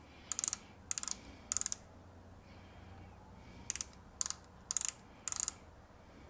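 Micrometer ratchet stop clicking in seven short runs of rapid clicks, three and then, after a pause, four, as the spindle is closed onto a turned metal stub to measure its diameter; the ratchet slipping marks the set measuring force.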